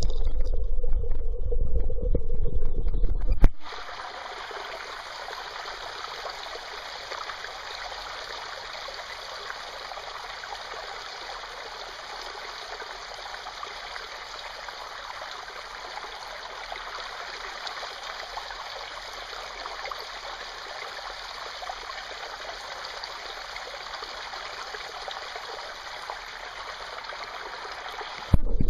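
Shallow creek water running over rocks, a steady rushing. Background music with a low throb plays for the first three and a half seconds and cuts off abruptly before the water is heard, and it comes back right at the end.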